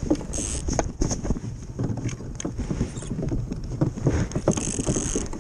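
Ice boat's steel runners rumbling over lake ice at speed, with a steady low rumble, irregular ticks and crackles, and a high hiss that swells and fades.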